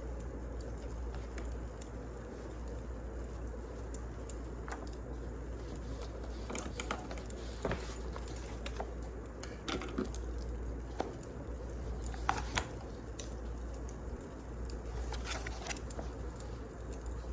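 Wood fire crackling: scattered sharp pops and snaps over a steady low hiss.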